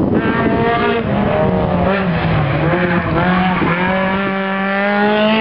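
Small hatchback rally car's engine revving hard as the car accelerates away out of a hairpin, its pitch dropping briefly and climbing again a few times, then rising near the end.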